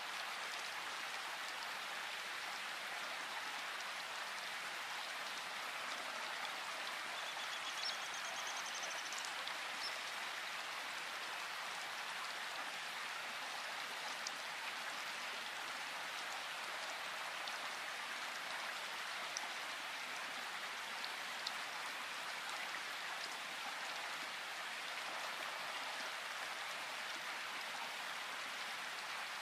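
Steady rain falling, an even hiss with a few sharper single drop sounds here and there.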